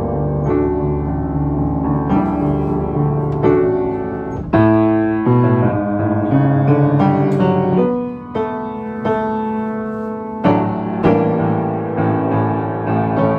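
Solo piano playing chords under a melody, with a low bass ringing through the first few seconds and strong new chords struck about four and a half seconds in and again about ten and a half seconds in.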